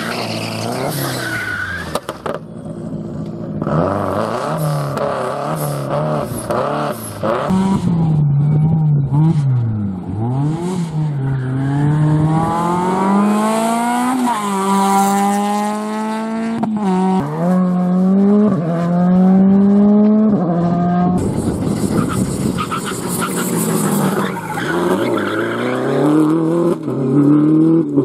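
Rally cars driven flat out one after another, among them a Subaru Impreza and a Peugeot 206. Their engines rev hard and climb in pitch through the gears, with a sudden drop at each gear change, and the tyres squeal in places.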